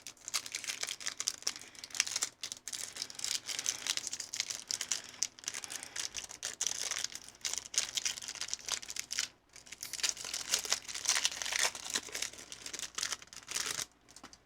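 Foil wrapper of a Pokémon booster pack crinkling and being torn open by hand, with a brief pause about nine and a half seconds in.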